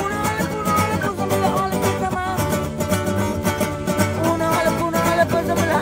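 Nylon-string classical acoustic guitar strummed in a steady rhythm, with a man singing along over it.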